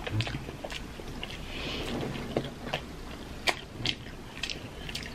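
Chewing of fried taquitos topped with guacamole: scattered crunches and mouth clicks, the sharpest two a little past the middle.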